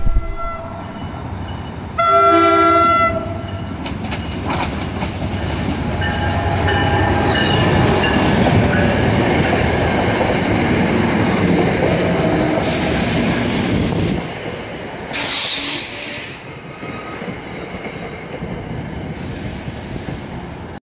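NJ Transit diesel commuter train sounds one short horn blast, then rolls past close by, its wheels clattering over the rails. Two brief high-pitched wheel squeals come about two-thirds of the way through, and the sound eases as the last coaches go by.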